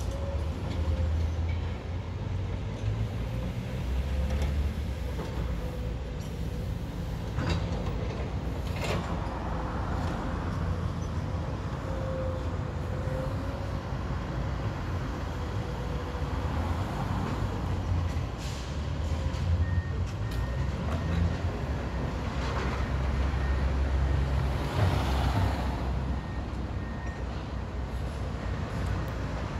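Tracked excavators' diesel engines running at a demolition site, rising and falling with load as they dig, with occasional clanks and rattles of broken brick and concrete. A faint short beep repeats in the second half.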